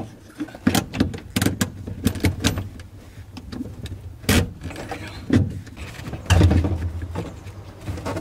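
Irregular clicks, knocks and rattles of a Nissan 240SX's plastic dashboard and its trim being handled and pushed into place in the car's cabin, with louder knocks about four and six seconds in.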